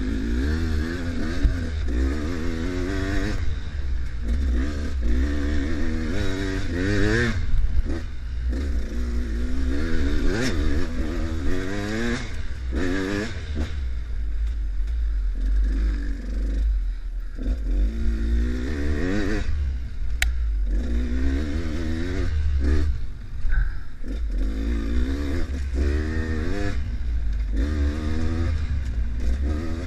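Enduro dirt bike engine revving up and easing off again and again, a rise in pitch every second or two, over a steady low rumble and some clatter from the rough trail.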